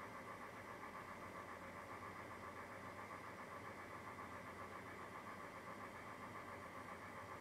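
Faint, steady mechanical hum with no change or break.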